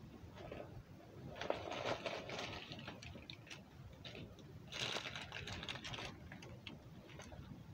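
Rustling and clattering of a handbag being handled and rummaged through, in two noisy bursts about a second and a half and about five seconds in, with scattered clicks between.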